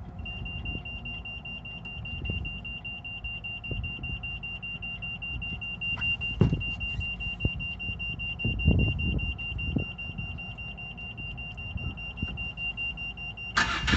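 Westerbeke 12-D diesel's instrument panel alarm buzzer beeping steadily with the ignition switched on and the engine not running. It stops near the end, when a much louder clattering noise starts.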